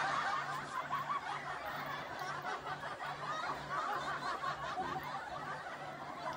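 Close mouth sounds of a man eating instant fried noodles and rice by hand: continuous wet chewing and lip-smacking.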